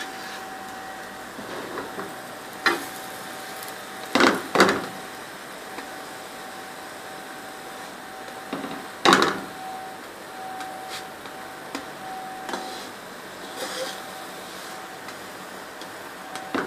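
Spatula scraping and knocking against a frying pan a few times while a pancake is folded: two short scrapes about four seconds in and another about nine seconds in. Underneath is a steady background hum with a faint high tone.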